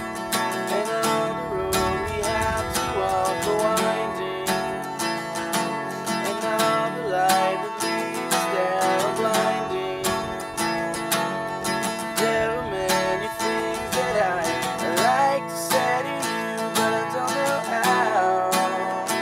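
Acoustic guitar strummed and picked, with a man singing along in a clear, wavering voice.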